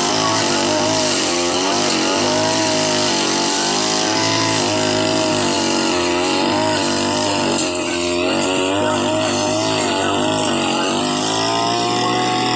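Grass-cutting brush cutter engine running at high speed, its pitch wavering up and down as the load changes, with a brief dip about eight seconds in.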